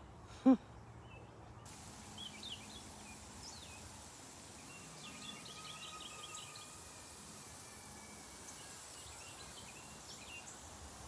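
Small birds chirping in short scattered calls over a faint steady outdoor hiss. A brief voiced sound like a short 'mm' comes about half a second in and is the loudest thing.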